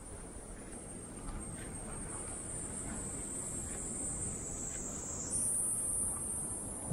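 Cicadas buzzing: a steady high-pitched drone that swells and gets clearly louder about five seconds in, over a low background rumble.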